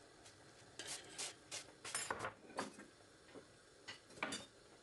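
Faint, irregular light clicks and knocks, about nine of them, from kitchenware being handled.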